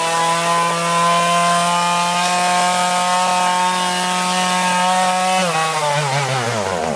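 Two-stroke chainsaw running at steady high revs while cutting into an ash trunk. About five and a half seconds in, its revs drop and waver as it bogs down toward a stall, which the owner puts down to a bad mixture of oil and gas.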